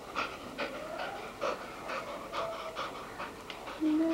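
A black dog panting, about three quick breaths a second, while being petted. A steady held hum-like tone starts near the end and is louder than the panting.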